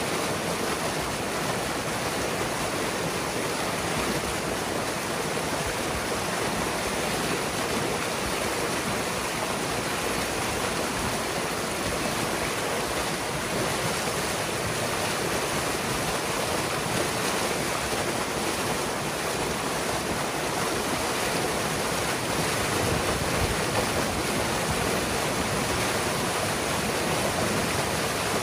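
Muddy floodwater rushing and splashing steadily through a breach torn in a beaver dam: the beaver pond draining out in a strong torrent.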